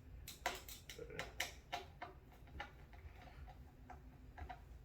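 Screws being driven by hand into cabinet panels: a run of light, irregular clicks, more frequent in the first two seconds and sparser after.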